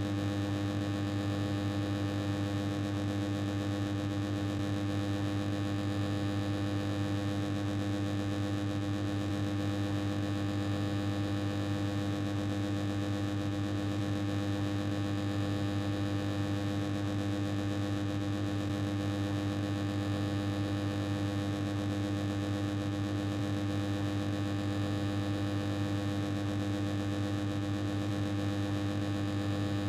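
Old air conditioner running noisily: a steady low drone with several held tones over a hiss, the sound of a faulty unit.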